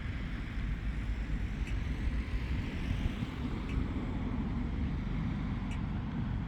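Steady low rumble and hiss of outdoor background noise, with faint ticks about every two seconds.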